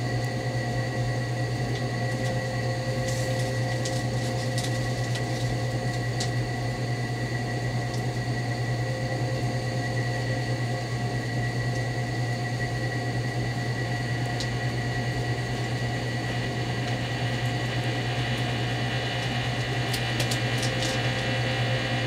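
Philco 37-630 tube radio warming up with no antenna attached: a steady low hum with hiss from its speaker, and a few faint crackles, some a few seconds in and a cluster near the end.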